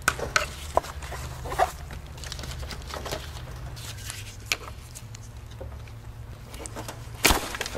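Scattered clicks, knocks and scrapes of a screwdriver working at hose clamps and vacuum lines on an engine's throttle body, the loudest knock near the end, over a steady low hum.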